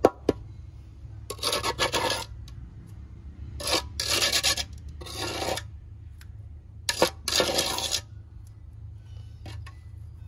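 Small pointed trowel scraping across wet cement in a mold, smoothing its surface in about five short strokes.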